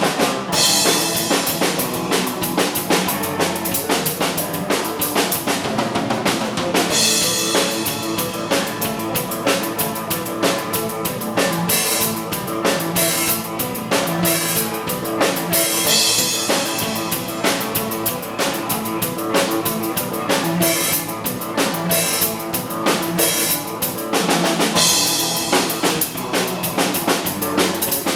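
Live band playing with a full drum kit driving a steady beat, bass drum and snare to the fore, and cymbal crashes every few seconds.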